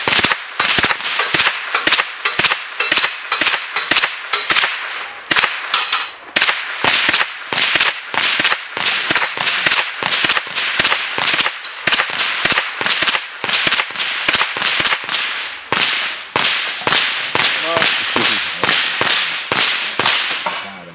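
Sig Sauer 522 .22 LR semi-automatic rifle fired rapidly at steel plate targets, about two to three sharp cracks a second with two brief pauses, stopping near the end.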